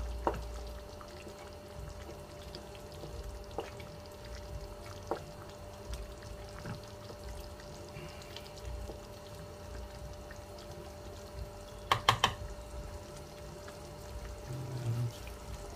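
Thick bolognese sauce simmering in a frying pan while a wooden spoon stirs and scrapes through it, with faint wet bubbling and soft ticks. Late on there is a quick run of three or four sharp knocks as the spoon is tapped on the pan and laid across it.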